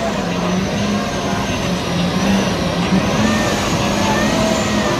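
Chevrolet Camaro drift car's engine held at high, fairly steady revs while its rear tyres spin in a burnout, with the dense rushing noise of the spinning tyres.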